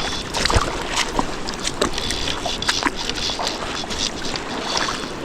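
River water running and splashing over stones, a steady rush with many irregular small splashes and clicks.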